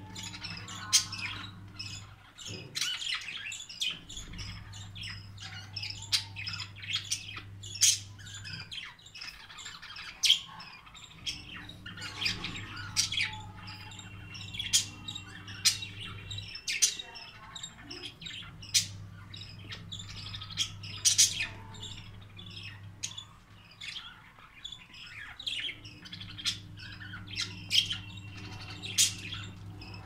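Flock of budgerigars chattering with a dense run of short chirps and squawks, several a second, over a low hum that switches on and off every few seconds.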